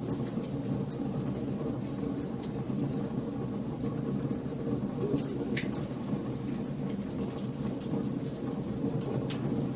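Wood fire crackling in a fireplace: a steady low rumble of burning with frequent small sharp pops and snaps at irregular moments.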